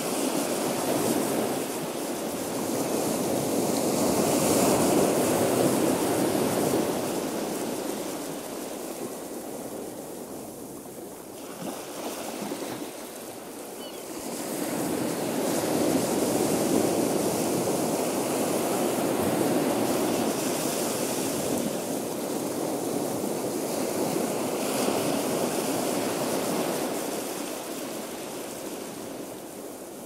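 Ocean surf: a wash of breaking waves that swells and fades slowly, one surge about five seconds in, a lull, then a longer surge through most of the second half.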